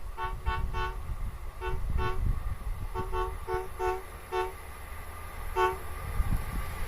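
Horn of an OSE MAN diesel railcar sounding about a dozen short, sharp toots in quick irregular groups, over a low rumble of the approaching train.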